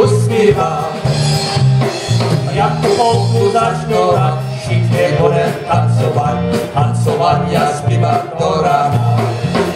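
Live polka band playing an instrumental passage between verses: accordion and horns carry the melody over a steady oom-pah bass beat, with a trumpet raised near the end.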